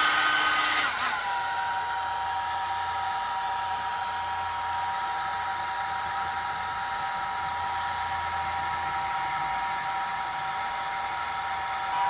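Hair dryer blowing steadily, heating a Screenmend patch to set its heat-activated adhesive on a window screen. Its whine drops to a lower, steady speed about a second in.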